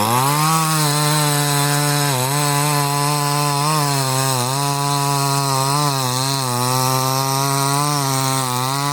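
58cc two-stroke gas chainsaw run up to full throttle and cutting through a log. The engine note climbs at the start, then holds high and steady, dipping briefly a few times as the chain takes load in the wood.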